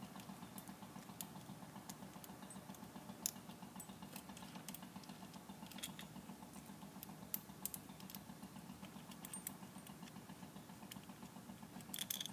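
Faint, sparse metal clicks and taps of nuts and lock washers being handled as they come off the studs of a ratchet lever hoist's gear-side cover, over a low steady hum.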